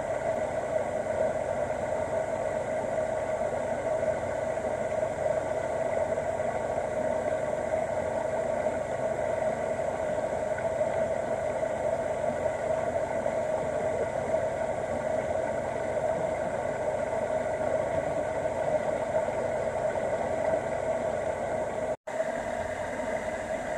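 Steady rushing of river water flowing over and between rocks in small cascades. The sound drops out for an instant near the end.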